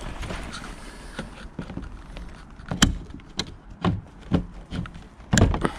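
Tin snips cutting through the cracked edge of a plastic car front splitter: a series of sharp crunching snips about every half second, starting a few seconds in, the loudest near the end.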